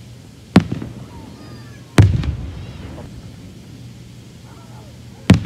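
Aerial fireworks shells bursting: three sharp booms, about half a second in, two seconds in and just before the end. The middle boom trails a rumbling echo.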